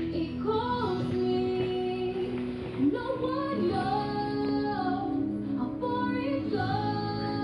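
A young woman's voice singing a slow ballad melody in long held notes that slide between pitches, over soft instrumental backing.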